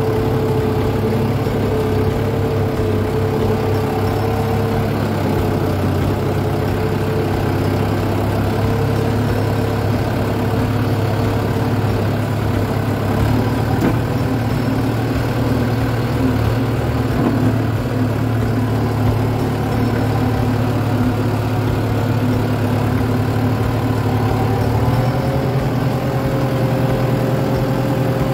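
Kubota M9540 tractor's diesel engine running steadily while driving and pushing soil. Its pitch drops slightly about five seconds in and rises again near the end.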